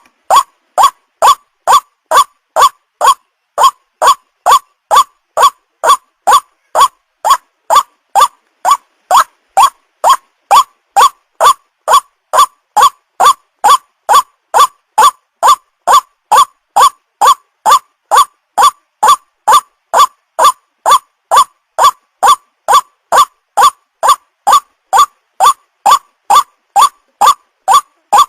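White-breasted waterhen (ruak-ruak) lure call: a short pitched note repeated at a very even pace, almost two a second, with clean silence between notes. It is a looped playback track used to attract young waterhens.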